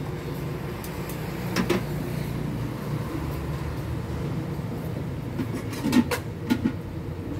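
Street ambience: a steady low rumble of traffic, broken by a few short, sharp clatters, one about one and a half seconds in and two close together about six seconds in.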